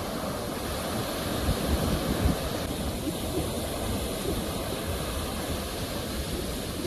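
Ocean waves washing ashore in a steady rush of surf, swelling briefly about two seconds in.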